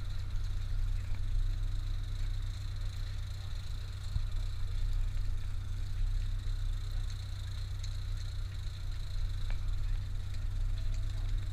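Charter fishing boat's engine idling, a steady low hum.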